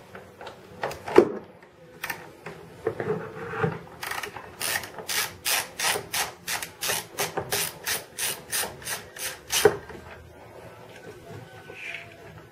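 Socket ratchet clicking in an even run of about three to four clicks a second as it loosens the half-inch nut of the battery hold-down, after a few knocks of the tool against metal.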